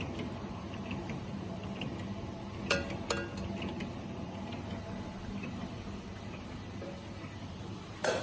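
Automatic can seaming machine running with a steady hum and a faint high whine. Two sharp metallic clinks come a little under three seconds in, and a louder knock comes near the end.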